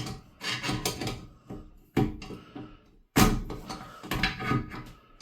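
Irregular plastic knocks and scrapes from hands working at the tight plastic fill-valve nut under a toilet tank, the loudest knock about three seconds in.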